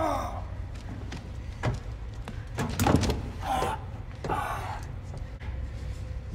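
Hand-to-hand fight: several sharp thuds of blows, the loudest about three seconds in, with short grunts and gasps, over a low steady machinery hum.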